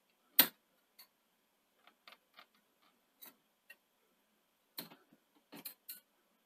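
Scattered small clicks and ticks from the metal and plastic parts of a Sony SL-C9 Betamax front-loading mechanism being worked by hand, as a trapped part is prodded to free it. A sharper click comes about half a second in, with small clusters of clicks around two and five seconds in.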